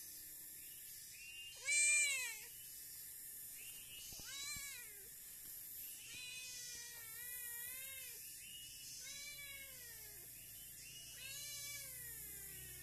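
Domestic cat meowing repeatedly, a string of rising-and-falling meows, the loudest about two seconds in.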